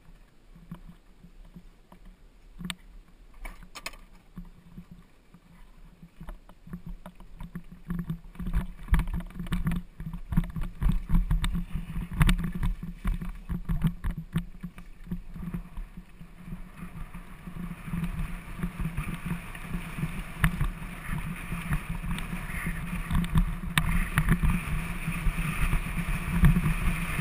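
Mountain bike ride heard from a helmet camera: after a quiet start with scattered clicks, the low rumble and rattle of the bike and its tyres on a rough track builds from about eight seconds in, joined in the second half by a steady rushing hiss.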